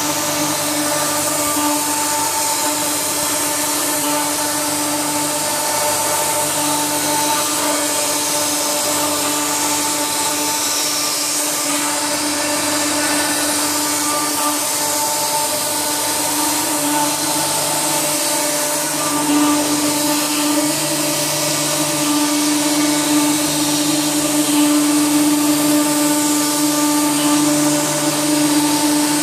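CNC router spindle running with a steady whine over a hiss. The whine grows louder about two-thirds of the way through.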